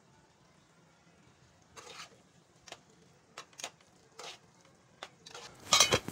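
Metal spoon stirring minced beef in a steel karahi: scattered scrapes and clinks against the pan, then a louder metallic clatter near the end as the lid is put on.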